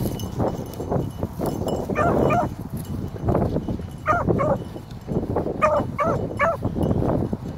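A young bluetick coonhound bays in a string of short, pitched barks while trailing a rabbit, the sign that the hound is on the scent. Under the baying there is a crunch and rustle of footsteps through dry brush.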